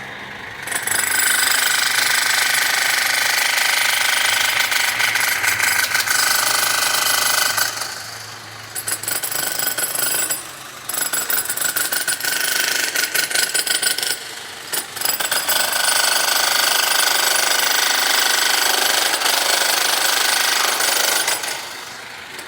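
Electric demolition hammer chipping in long runs of rapid blows, pausing briefly about eight, ten and a half and fourteen and a half seconds in, and stopping near the end.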